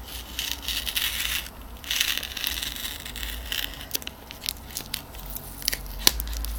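Packaging being handled and opened by hand: crinkling and rustling in patches, with scattered small clicks and taps later on.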